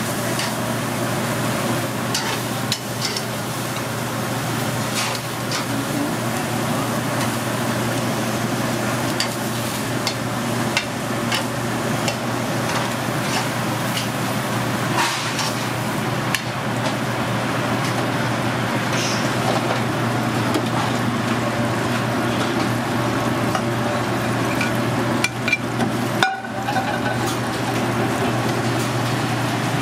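Grilled steaks sizzling and crackling over open gas flames and in a sauté pan, over a steady low hum. The sound drops out briefly near the end.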